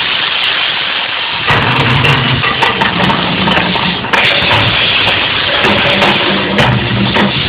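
Volcano show's eruption effects and soundtrack: a loud, even rushing roar with deep pulsing tones coming and going underneath.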